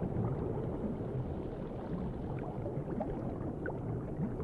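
Underwater ambience: a steady low rush of water with small bubbling pops scattered through it.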